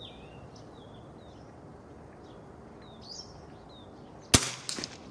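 A single gunshot from an unsuppressed Winchester 67A bolt-action .22 rifle firing an S&B standard-velocity .22LR round: one sharp crack about four seconds in, followed by a few quieter clicks. Birds chirp throughout.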